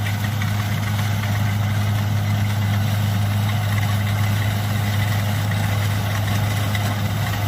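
Kubota DC70 combine harvester's diesel engine running steadily while it harvests rice, an even low drone with no change in speed.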